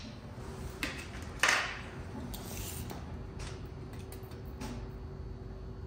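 Light workshop handling noise as tools and a cooling fan are moved about on a sheet-metal fan shroud. There are a few small clicks, a short sharp scrape about a second and a half in, then scattered soft ticks over a faint steady hum.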